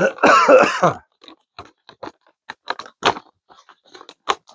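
A brief throaty vocal noise, then scattered small clicks and rattles as a belt mount is handled.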